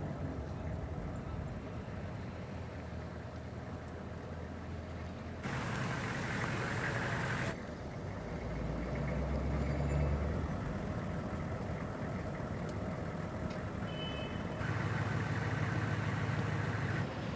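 Pickup truck engine running as it is driven and pulls up, with a brief rush of road and wind noise about five seconds in and a deeper engine rumble a few seconds later.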